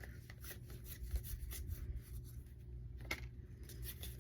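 Pokémon trading cards being handled: soft rubbing and small faint ticks as cards slide against one another, with one sharper click about three seconds in.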